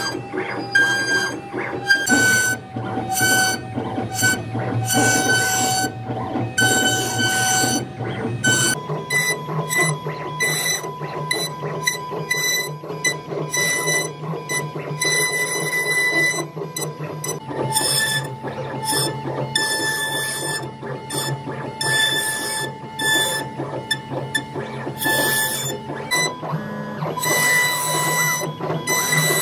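CNC router spindle whining at a steady pitch while its bit carves a relief pattern into a wood panel, with rough cutting noise swelling and fading about once a second as the bit works the pattern. The whine's pitch steps to a new value twice, about a third and about two-thirds of the way through.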